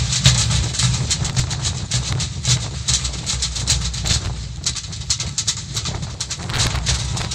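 Heavy wind rumbling on the microphone over the snare and bass drums of a marching drum corps, with a fast run of sharp drum strokes.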